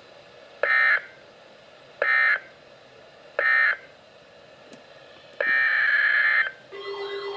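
Emergency Alert System SAME data bursts: three short end-of-message bursts about 1.4 seconds apart signal that the flood warning has ended. A longer header burst follows, starting the same alert again, and then a steady low tone begins near the end.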